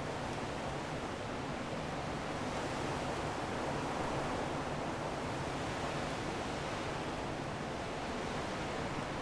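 Strong wind blowing steadily, swelling slightly a few seconds in and easing back.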